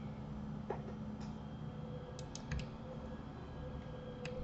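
Scattered clicks of a computer keyboard and mouse: a single click, then a quick run of four, then one more near the end. A steady low hum runs underneath.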